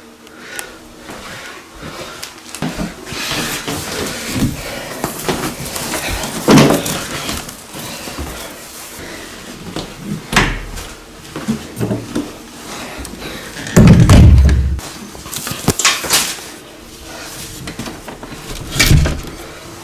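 Doors and fittings being handled in a small room: a string of knocks, bumps and rattles, with a heavy slam-like thud about two-thirds of the way through.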